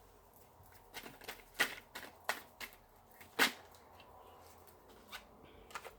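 Faint, irregular light clicks and taps, about eight of them over several seconds, with the loudest about halfway through.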